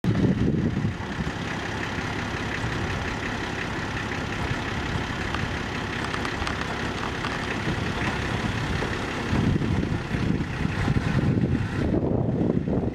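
Light flatbed truck's engine idling steadily, getting louder about nine and a half seconds in.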